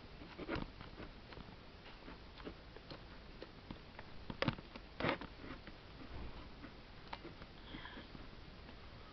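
Soft, scattered mechanical clicks and ticks from a FED 4 film camera being handled between shutter tests, with two sharper clicks about four and a half and five seconds in.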